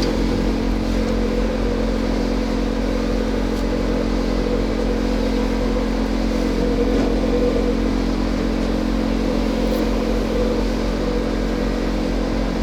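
Pipe-cleaning machine running steadily, a constant motor hum.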